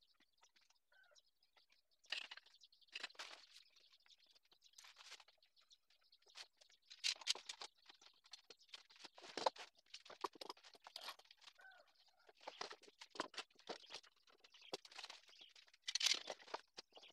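Faint clatter of a homemade metal screw press and clamps being set up over a glued wooden board: irregular knocks, clicks and scrapes of metal and wood, the loudest knocks about halfway through and near the end.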